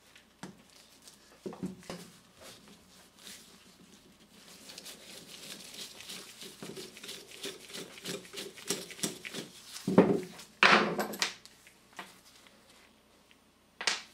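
Screwdriver turning a solenoid screw out of a starter motor's metal gear case, a rough scraping grind for several seconds, with light clicks of tools and parts before it. A couple of louder metal knocks and clatter about ten seconds in as the parts are handled.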